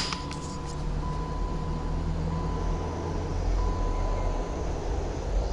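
Steady low mechanical rumble, with a faint thin high tone that comes and goes.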